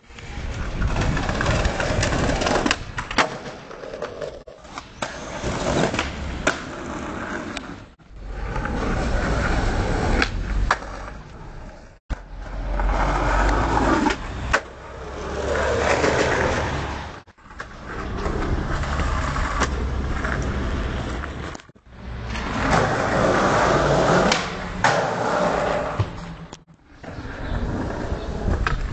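Skateboard wheels rolling on pavement and concrete, with sharp clacks of the board popping and landing. The rolling stops abruptly several times as one take cuts to the next.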